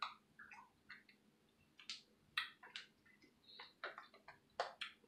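Faint, scattered wet mouth clicks and lip smacks, about a dozen short ones, from people sucking on extremely sour chewy candies.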